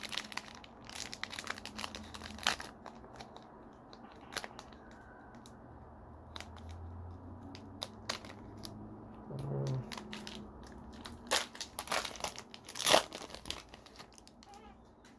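Foil trading-card pack crinkling as it is handled and torn open, with scattered sharp crackles and one louder rip near the end.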